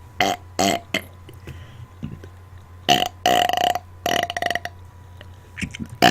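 Deliberate burping on command, close to the microphone: two short burps in the first second, then a longer pitched burp about three seconds in and a shorter one a second later.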